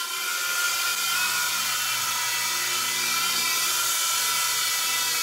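Protocol Skyline G-Series coaxial RC helicopter's electric motors and twin rotors running with a steady high whine as it comes down to land.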